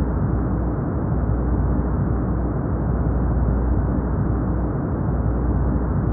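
Steady synthetic brown noise: a smooth, deep rumbling hiss with its energy heavy in the low end and nothing above the upper mids.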